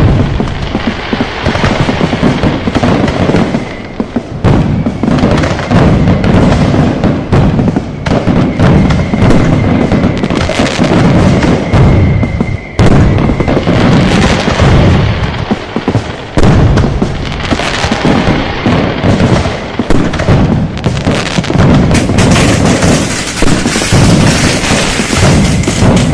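A dense, continuous barrage of fireworks and firecrackers: overlapping bangs and booms with crackling, with no pause between them. A faint high whistle-like tone sits under the blasts for a few seconds in the first half.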